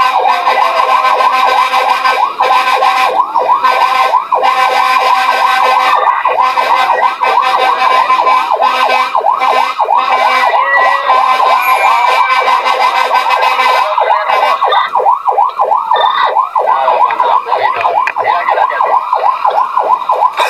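Fire engine sirens sounding in a fast yelp, the pitch sweeping up and down several times a second, with more than one siren overlapping.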